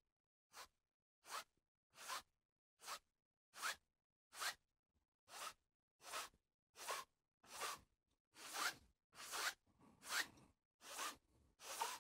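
A wide, somewhat dry flat brush swept back and forth across an oil-painted canvas in short horizontal strokes, about fifteen brief swishes at a steady pace, each roughly a second apart. The strokes pull the paint out sideways into a water reflection.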